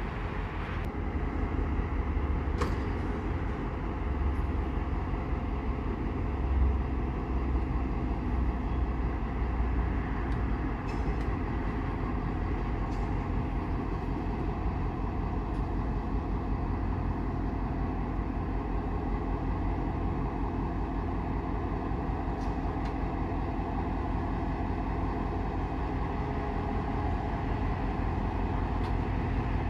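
EMD two-stroke diesel locomotive engine running steadily at low throttle, a deep low rumble that is a little stronger during the first ten seconds. A few faint high clicks sound over it.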